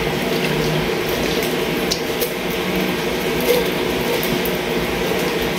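Canned fruit cocktail in syrup sliding and squishing out of a tipped can into a plastic tub, with a few soft plops and taps of the can. Under it runs a steady hum.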